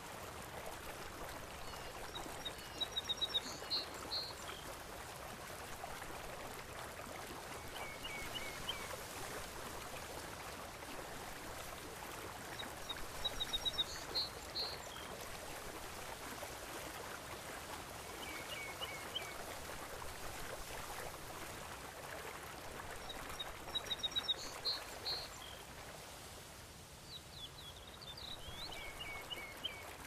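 Steady ocean water noise with birds chirping in quick runs of short high notes that recur about every five seconds, the louder runs about every ten seconds.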